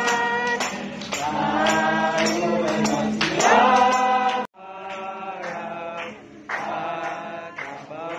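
A group of people singing a hymn together to a strummed acoustic guitar. About halfway through the sound cuts off abruptly and then resumes quieter.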